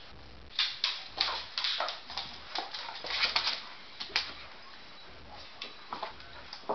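Dogs moving about on a hard floor: an irregular run of claw clicks and scuffs, busiest from about half a second to four seconds in, then a few scattered taps.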